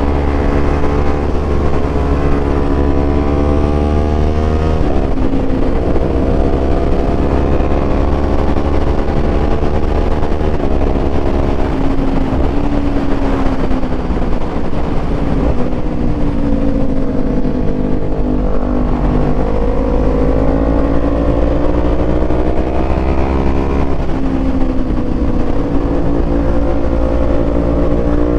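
Small parallel-twin sport motorcycle engine pulling hard through the gears on a winding road. Its pitch climbs under throttle and drops sharply at upshifts about five and ten seconds in, sweeps down while slowing for bends in the middle, then climbs again. Wind rushes over a helmet-mounted mic throughout.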